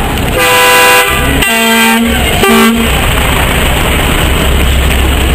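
Truck horn sounding three times: a loud blast of about half a second, a second blast of similar length, then a short toot, over a steady low engine rumble.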